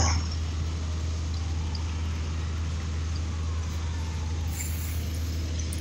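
Urban outdoor background: distant road traffic over a steady low rumble.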